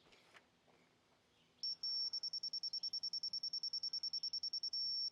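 Laser level receiver beeping. A high-pitched steady tone starts about a second and a half in, breaks into fast beeps of about nine a second, then holds steady again near the end. The detector is being slid along the grade rod to find the laser beam while the ground's level is checked, and the steady tone marks it sitting on the beam.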